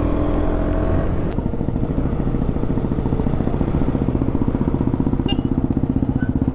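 KTM Duke 200's single-cylinder engine, heard from the rider's seat. It runs steadily, then about a second in the revs drop with a click as the bike slows, and the exhaust settles into a fast, even pulsing.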